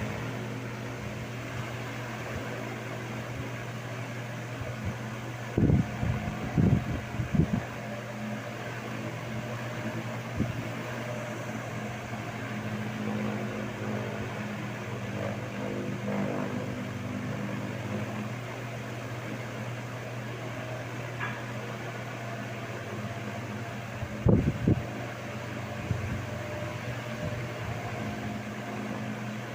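Tron 60 cm wall fan running steadily: an even motor hum under the rush of moving air. A few brief low thumps come about six to seven seconds in and again about twenty-four seconds in.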